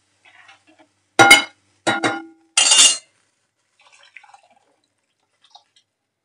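Two ringing clinks, then a short splash as thin tamarind water is poured into a kadai of tomato-onion masala, followed by a few faint drips.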